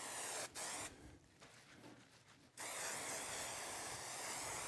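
Aerosol can of contact spray adhesive spraying onto a sheet of plastic laminate: two short bursts in the first second, then a steady spray from a little past halfway.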